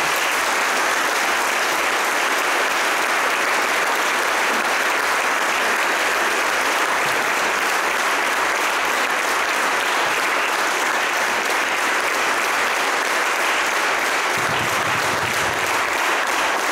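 Audience applauding, a steady sustained round of clapping.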